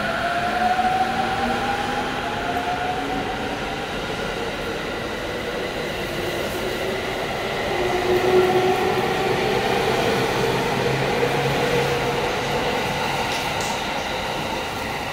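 Electric multiple-unit commuter train running out past a station platform, its motor whine rising slowly in pitch as it gathers speed over a steady rumble of wheels on rail.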